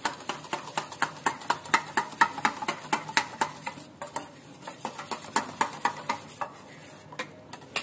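Metal spoon whisking yogurt in a stainless steel bowl, clinking against the bowl in quick strokes, about five a second, that weaken and thin out near the end.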